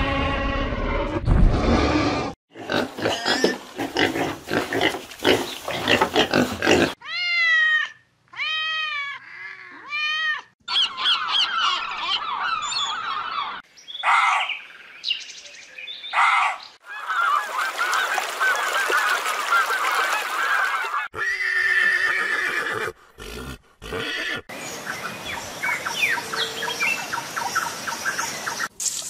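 A string of different animal calls from cut-together clips, including a run of repeated arching, pitched calls in the middle, bird-like and honking.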